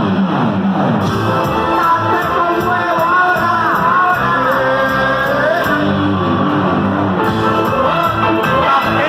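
Cuarteto band music playing loud and steady, a wavering lead melody over a steady bass.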